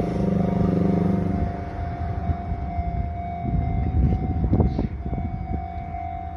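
Enoden level-crossing warning bell ringing steadily as a train goes through the crossing, with a low hum that fades after about a second and a half and a run of knocks about four to five seconds in.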